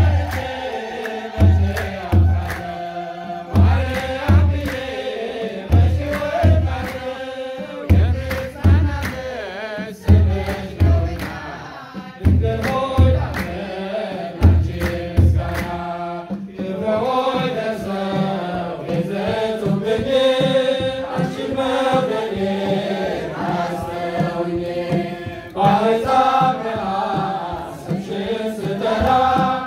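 Ethiopian Orthodox choir of men and women singing a mezmur, with hand clapping and a kebero drum. The deep drum strokes come in pairs about every two seconds, stop about halfway through while the singing and clapping go on, and return once near the end.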